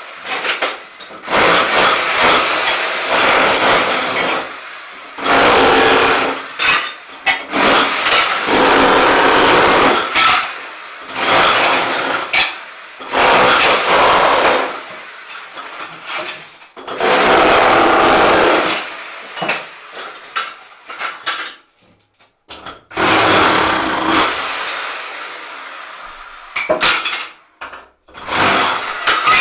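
Rotary hammer chiselling ceramic shower tiles off a wall, running in repeated bursts of one to three seconds that stop and start.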